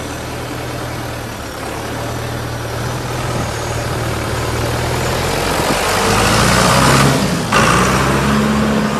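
John Deere 5510 tractor's diesel engine running steadily, then revving up about six seconds in, its pitch rising. It breaks off suddenly for a moment about seven and a half seconds in and picks up again.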